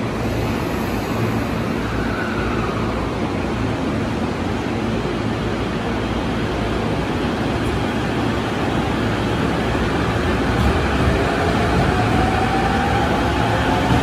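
JR Musashino Line electric commuter train pulling out of an underground platform, its motors whining higher as it picks up speed over a steady rumble. It grows a little louder toward the end.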